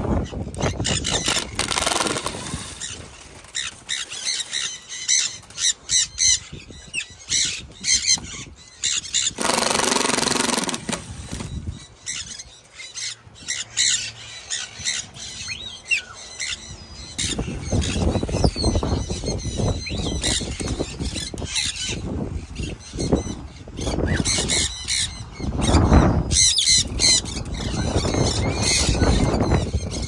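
Parrots squawking and screeching repeatedly, mixed with rustling and knocking as a wire cage is handled. There is a loud rushing patch about ten seconds in.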